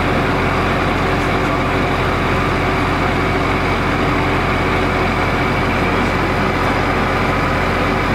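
Large truck engine idling steadily, an even hum with no change in speed.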